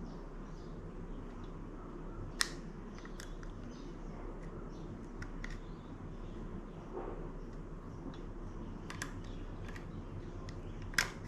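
Faint scattered clicks and small taps over a steady low hum: metal tweezers picking at a small part stuck inside a mountain bike's gear shifter.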